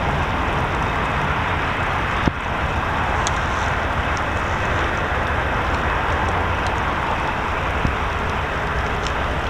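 Steady rumble of a VIA Rail passenger train pulling away from the station, its wheels running on the rails, with one sharp click about two seconds in.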